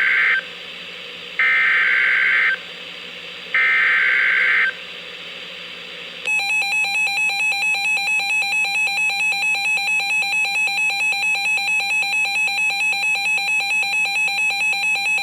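NOAA Weather Radio emergency alert coming through a weather radio's speaker. First come three short, harsh SAME digital header bursts of about a second each; after a short pause, a steady, rapidly pulsing alert tone follows, announcing a new warning.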